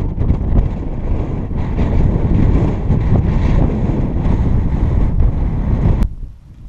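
Strong wind buffeting the microphone, a loud rumbling rush; it cuts off suddenly about six seconds in, leaving a much quieter background.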